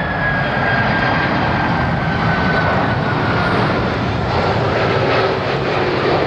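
Boeing 767-300ER jet airliner, with its General Electric CF6 turbofans, passing close on its landing approach. A loud, steady jet rush carries an engine whine that slowly falls in pitch as it goes by.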